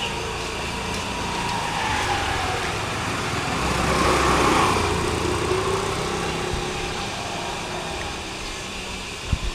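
A motor vehicle passes close by, its engine growing louder to a peak about four seconds in and then fading away.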